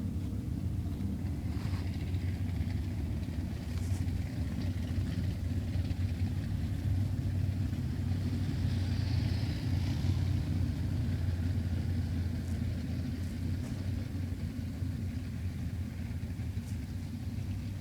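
Car driving at a steady speed: an even, low engine and road rumble with no revving.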